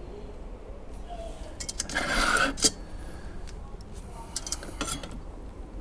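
Metal clinks and taps from handling the Ghillie Kettle's parts, with a short rasping rush about two seconds in.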